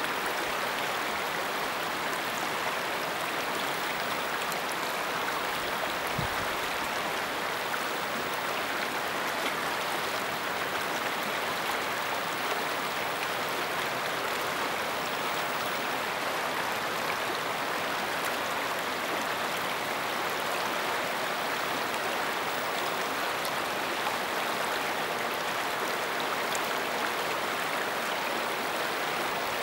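Steady rush of a shallow, fast-flowing river running over stones.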